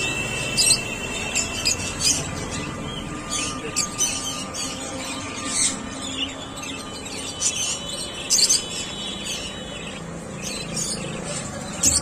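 Budgerigars chirping: short, high chirps coming irregularly, a few each second, over a steady low background hum.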